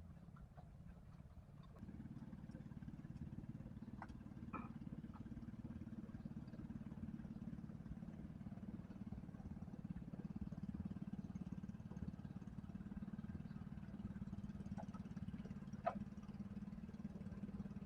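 A motor engine running steadily at a distance, a low hum that grows louder about two seconds in and holds, with a few faint clicks over it.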